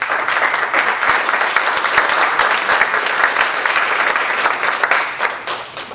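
Conference audience applauding at the end of a talk: many people clapping, starting abruptly, holding steady, then fading out near the end.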